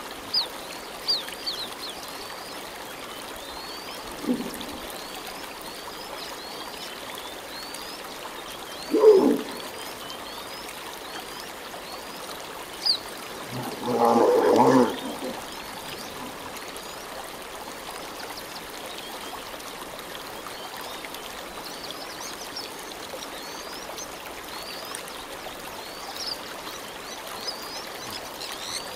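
African elephant calls: a brief low call about four seconds in, a louder short call about nine seconds in, and a longer, loudest call around fourteen to fifteen seconds in. Under them runs a steady hiss with short high rising chirps repeating throughout.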